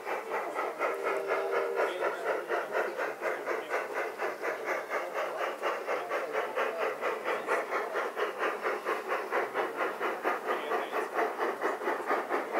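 Garden-railway model steam locomotive running with a steady, quick chuffing beat, plus a brief low tone about a second in.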